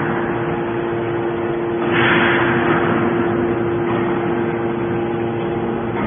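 Hydraulic scrap-metal baler running, its pump and motor giving a steady hum, with a rush of hiss about two seconds in. It is compressing aluminium shavings into a bale.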